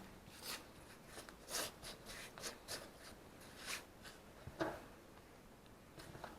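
Faint, irregular scraping and rubbing strokes of a kitchen utensil working brown sugar for a cinnamon-roll filling, with a soft knock about four and a half seconds in.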